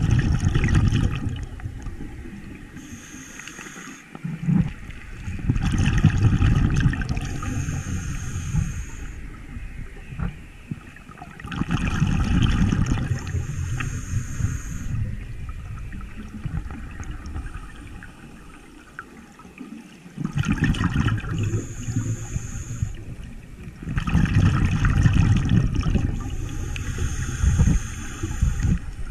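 Scuba diver breathing through a regulator underwater: a short hiss on each inhale, then a gurgling rush of exhaled bubbles, repeating several times.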